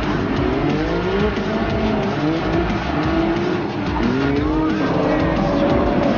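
Toyota JZ straight-six engines of drifting sedans revving up and down in quick rising and falling swoops, several cars overlapping, over a steady hiss of sliding tyres.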